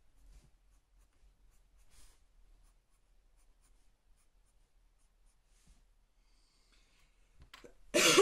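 Felt-tip marker scratching faintly on paper in short strokes. Just before the end there is a brief, loud, breathy sound.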